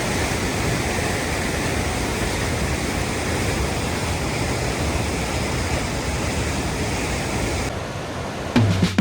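Steady rushing of a small waterfall, a dense even hiss of falling water. Near the end the water sound drops away and music starts.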